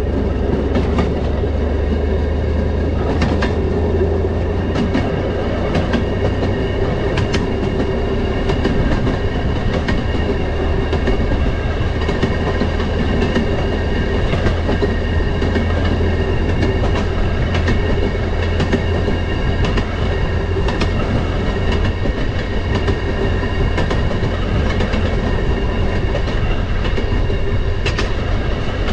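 Railroad motorcar (track speeder) running along the rails: a steady low engine and rolling rumble, with irregular sharp clicks as the wheels cross rail joints.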